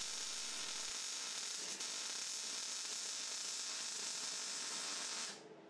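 Jefferson Auto MIG 185 welder's arc sizzling steadily as a bead is run on a steel box-section seat-support cross member. The arc stops about five seconds in.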